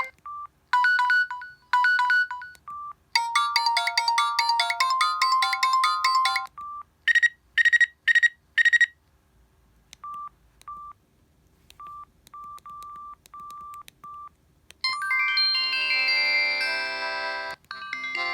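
Samsung SGH-E720 mobile phone playing its preloaded ringtones one after another: short electronic melodies, each stopping after a second or a few seconds, with short single beeps between them and a fuller tune starting near the end.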